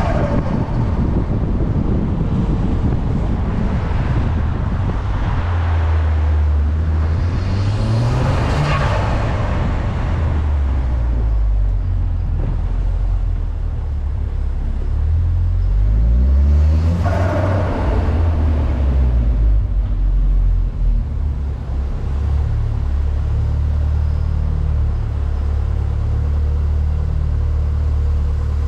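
Volkswagen Golf R Mk6's 2.0-litre turbocharged four-cylinder idling and revved twice, about eight and seventeen seconds in. Each rev is followed by a burst of turbo flutter as the throttle closes, then it settles back to a steady idle. The sound echoes in an underground parking garage.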